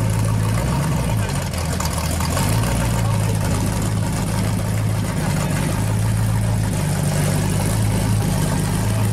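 Supercharged V8 of a 1970 Camaro pro street car idling steadily, its note dipping and wavering briefly between about one and two and a half seconds in.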